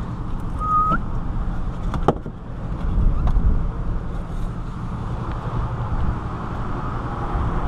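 Wind rumbling on the microphone, with a short high squeak about a second in and a sharp click about two seconds in.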